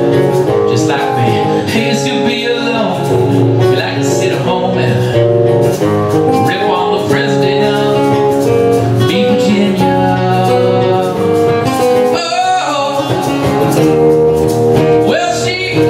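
Acoustic band playing a song: two acoustic guitars with a man singing.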